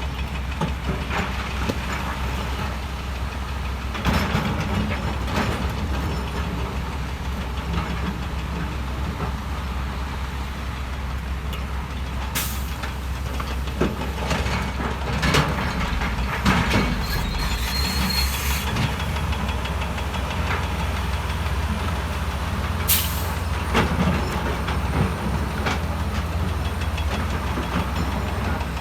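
Diesel engines of heavy earthmoving machines running steadily, with scattered sharp knocks and clanks and a short hiss a little past halfway.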